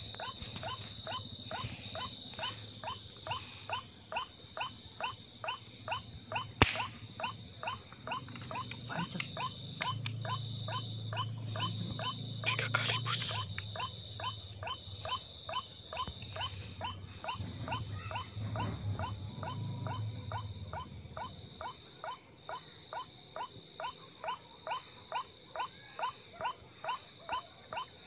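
Night chorus of insects and frogs: a steady high insect trill, with calls pulsing evenly about two and a half times a second. About seven seconds in comes a single sharp crack, the hunting rifle firing.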